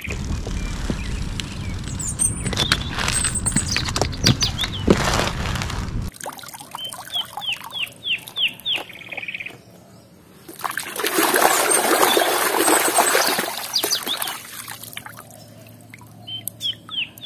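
Water splashing and sloshing in a plastic tub as toys are washed by hand, loudest about halfway through. A bird repeats a quick series of short falling chirps in the middle and again near the end, and a low rumbling noise with clicks fills the first several seconds.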